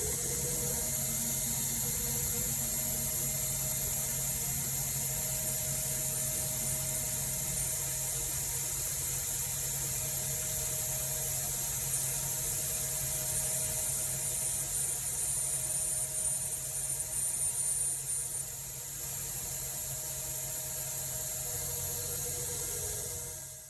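Machine tool running while cutting metal: a steady high hiss over a constant hum. A thin high whine comes in after about five seconds and stops after about eighteen.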